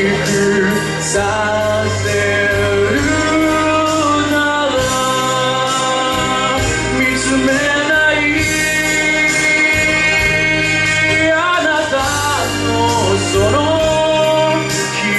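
A man singing into a handheld microphone over a karaoke backing track, holding long notes.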